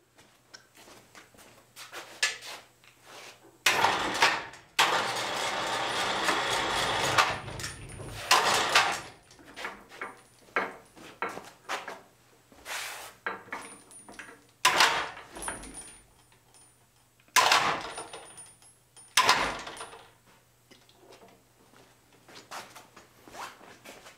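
A tilting-column drill press being swung back from tipped to vertical: a series of metal clanks and knocks, with a loud, steady noise lasting about four seconds a few seconds in.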